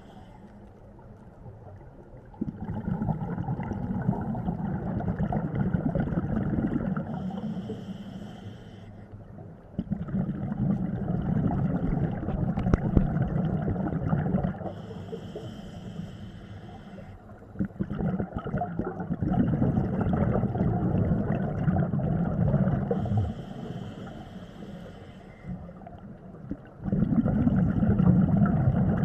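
Scuba diver breathing through a regulator, heard underwater. A short hissing inhale alternates with a longer low bubbling exhale, in slow regular cycles about every seven to eight seconds.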